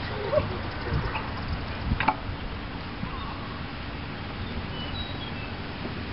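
Open-air ambience: a low rumble of wind on the microphone, with faint murmuring voices and a few short chirps.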